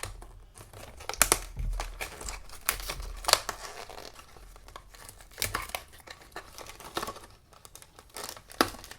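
Cardboard and plastic packaging of a blind box being torn open and handled, with irregular crinkling and tearing rustles.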